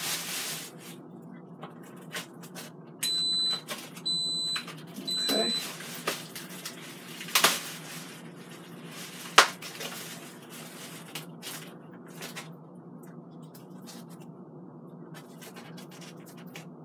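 Instant Pot Duo Mini electric pressure cooker beeping three times, high and pure, each beep about half a second long, a few seconds in, as it starts its sauté program. Sharp clicks and crinkling follow as a plastic-wrapped meat package is handled.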